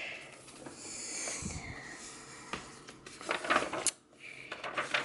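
Paper rustling and soft handling noises as a coloring book's page is turned, with a few short scrapes and taps.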